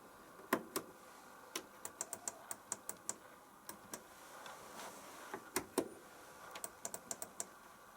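Faint sharp clicks from a Zanussi washing machine's control panel as its controls are worked, some single and some in quick runs of several clicks.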